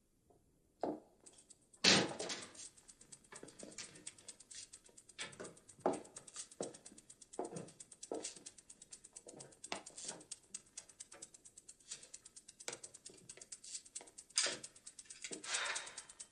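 Footsteps and small knocks of several people moving through a house, with a louder thud about two seconds in. The steps come at walking pace, with a few louder knocks near the end.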